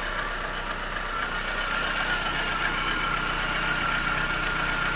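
Chevrolet Corsa engine idling with a steady high-pitched whine that comes on when the headlights are switched on; the owner wonders whether the alternator is to blame.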